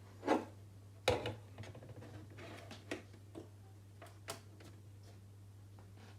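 A few separate knocks and clicks, the loudest about a third of a second and a second in, over a steady low hum.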